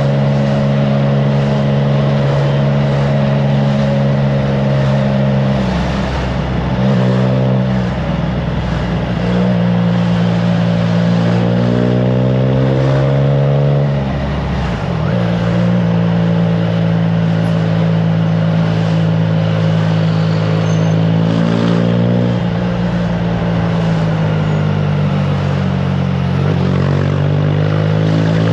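Triumph Trident 660's inline three-cylinder engine through an aftermarket FireTong exhaust, running on the road under way with wind rushing over the microphone. The engine note holds steady, then dips and climbs back in pitch a few times: about a fifth of the way in, around halfway, and near the end.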